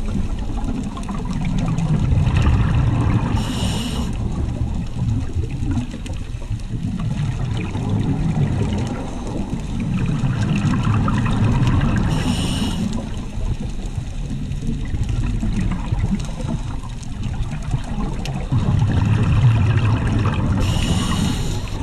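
Scuba breathing heard underwater through the camera: a short hiss of inhaling through a regulator about every eight to nine seconds, each followed by a long rumble of exhaled bubbles.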